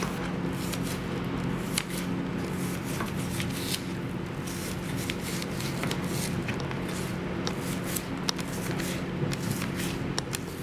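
A knife slicing partly frozen chicken breast into cubes on a plastic cutting board: an irregular run of light taps and scrapes as the blade goes through the firm meat and meets the board. A steady low hum runs underneath.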